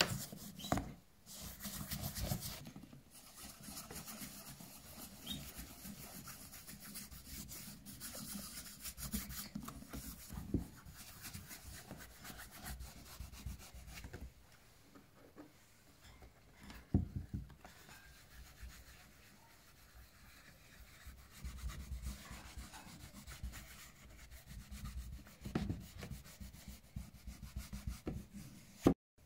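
Cotton cloth rubbing shoe polish into a leather shoe, a soft continuous scratchy rubbing in uneven strokes, with a few short knocks along the way and a sharp click near the end.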